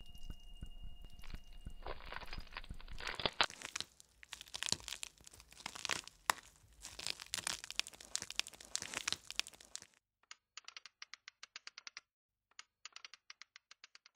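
Dense, close crackling and crunching of a dry, grainy material for about ten seconds, with a faint steady high tone that ends about two seconds in. Then a sparse run of quick dry ticks, several a second, broken by short pauses.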